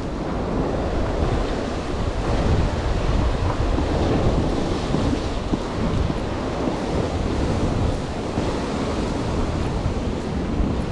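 Ocean surf breaking and washing against the foot of a rocky sea cliff, a steady rushing with wind buffeting the microphone.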